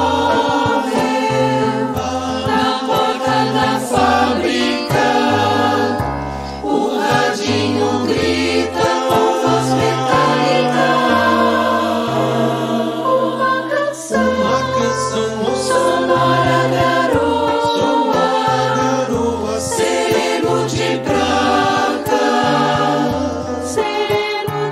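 A choir singing a song over a bass line that steps from note to note about once a second.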